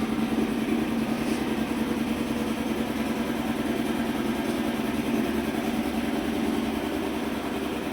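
Steady machine drone, a motor or engine running without change.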